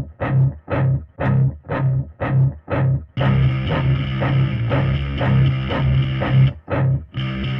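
Background rock music led by guitar: short stabbed chords about twice a second, then sustained chords from about three seconds in, with a brief break near the end.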